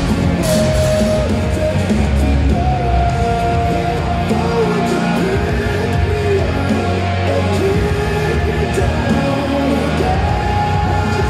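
Rock music with a held, gliding melody line over a dense low end.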